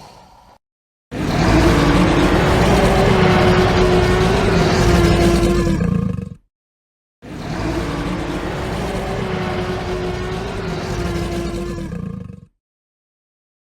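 Tyrannosaurus rex roar sound effect: two long roars of about five seconds each with a steady pitch, separated by a moment of silence, the second a little quieter than the first.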